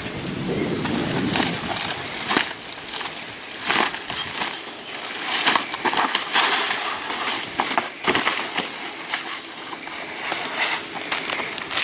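Old asphalt shingles being torn and scraped off a roof deck during a tear-off: irregular scraping and tearing with frequent sharp cracks.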